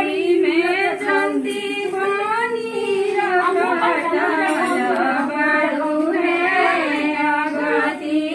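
Several women singing a traditional pre-wedding ritual folk song together, unaccompanied, in one continuous high-pitched melody.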